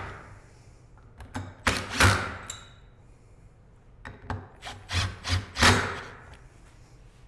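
Cordless impact driver running the clutch cover screws down in short bursts, a cluster about a second in and another from about four to six seconds in, as the screws are tightened in a crisscross pattern.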